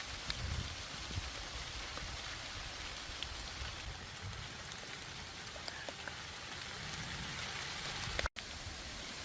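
Steady rain hiss with scattered small drop ticks, broken by a brief total dropout a little past eight seconds.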